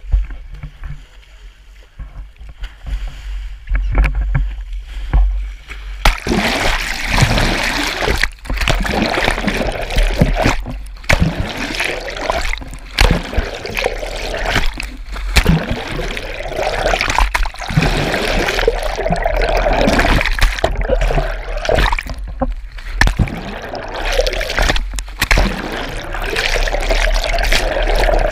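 Water splashing and sloshing against a boat, uneven and busier from about six seconds in, over a steady low rumble.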